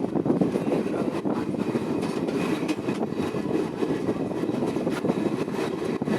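A train running past at a station: a steady rumble of wheels on the rails, with irregular clicks throughout.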